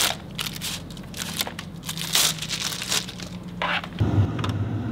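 Clear plastic wrap crinkling and crackling as it is peeled off a headset's headband. A low steady hum comes in about four seconds in.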